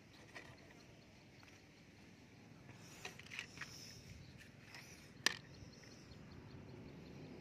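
Small plastic toy vehicles being set down and knocked against a wooden plank and rummaged in a plastic basket: a few light, sharp clicks and taps, the loudest a little past five seconds in, over a quiet background.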